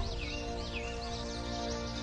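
Background music of held chords, the chord changing right at the start, with high bird chirps over it.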